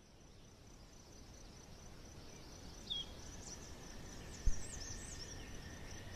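Outdoor nature ambience slowly getting louder: a steady background hiss with a continuous high insect trill and scattered short bird chirps. A single low thump about halfway through is the loudest sound.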